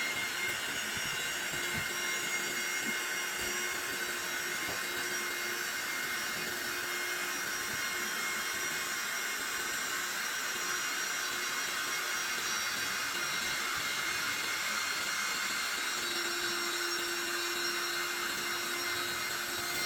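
Small electric air pump running steadily while it inflates an airbed, a constant whirring hiss with a faint hum that drops in and out.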